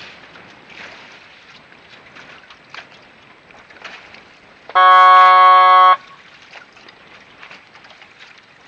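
A single loud horn blast, about a second long, at one steady pitch, sounds about halfway through. Under it runs steady wind and water noise from a boat moving over choppy water.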